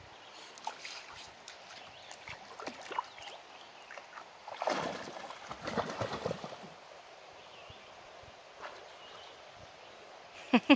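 A small dog splashing as it bounds into a shallow, stony river and starts swimming; the splashing is loudest from about four and a half to seven seconds in, after a few scattered light splashes and steps. A short, loud sound comes near the end.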